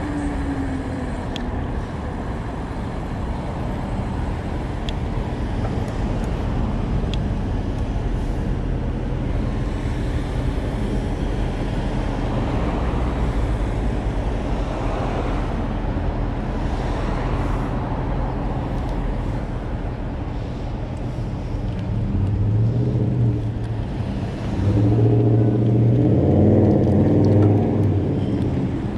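City street traffic heard from a moving e-bike: a steady rush of passing cars and road noise. A nearby vehicle's low engine hum grows louder twice near the end.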